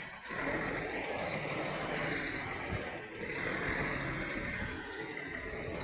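Steady running noise of a truck, a continuous hiss-like sound that swells and eases a few times.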